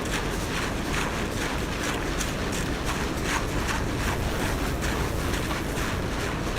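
Construction machinery running steadily, with frequent short scrapes and knocks over it.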